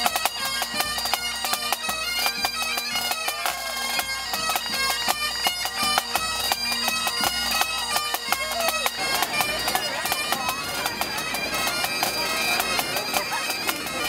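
Great Highland bagpipes of a pipe band playing a tune over their steady drones, the melody full of quick ornament notes.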